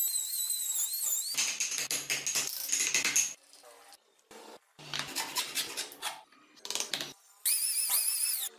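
Woodworking power tools and sanding on a wooden toy car body: a router's high whine that wavers as it cuts for the first second or so, then stretches of rasping, scraping strokes, and a second wavering power-tool whine near the end.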